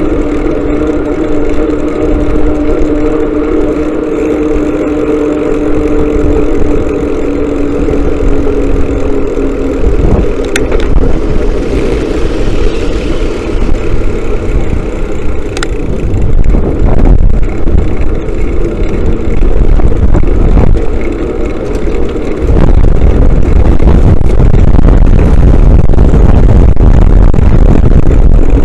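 Motorcycle engine running on the road, holding a steady note for the first ten seconds or so before the tone breaks up and shifts. A loud low rumble takes over for the last several seconds.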